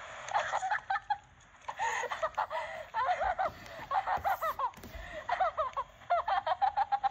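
People laughing and snickering, with snatches of unclear chatter between the laughs.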